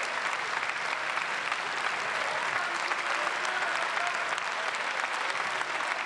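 Sustained applause from many deputies clapping together, an even crackle that holds steady throughout.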